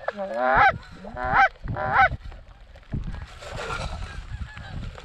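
Canada goose honking: a quick run of three or four loud honks, each breaking upward in pitch, in the first two seconds, then fainter scattered honks.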